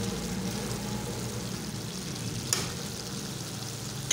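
Chicken mince and peas sizzling as they are fried off (bhuna) in a steel pan while being stirred with a metal spatula, with a sharp click of the spatula against the pan about two and a half seconds in.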